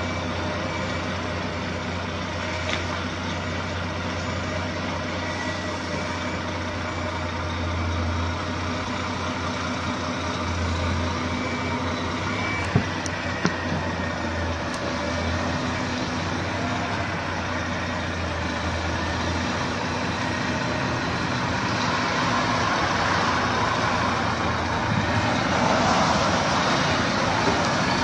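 Heavy truck's diesel engine running at low revs as the tipper semi-trailer reverses slowly, a steady low drone. Two sharp clicks come about halfway through, and the sound grows louder and fuller over the last few seconds.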